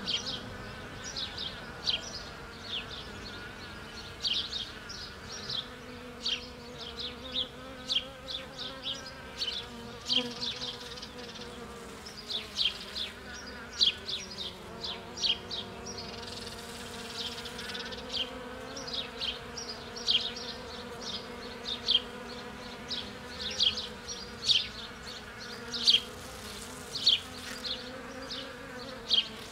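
Honeybees buzzing as they forage in oriental poppy flowers: a steady low hum. Frequent short high-pitched chirps sound over it and are the loudest events.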